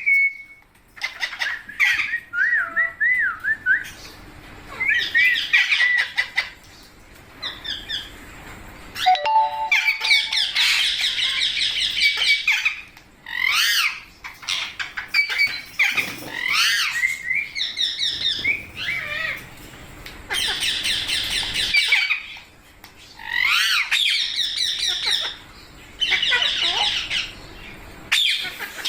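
A group of rose-ringed (Indian ringneck) parakeets squawking in repeated harsh bouts of a second or two, with quick rising-and-falling shrieks in between.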